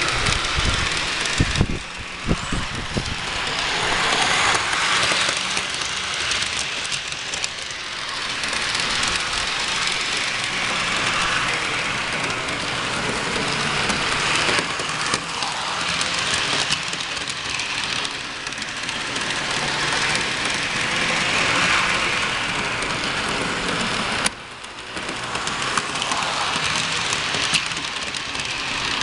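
HO-scale Tyco train running around its track: a steady rushing clatter of small wheels on the rails and the locomotive's motor, swelling and fading as the train passes close by and moves off around the loop. A few low knocks in the first two seconds.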